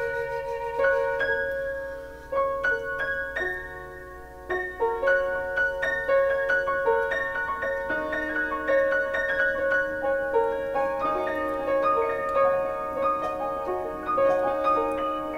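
Soft, slow piano music: single ringing notes that overlap as they decay. It fades down about two seconds in and picks up again about four and a half seconds in.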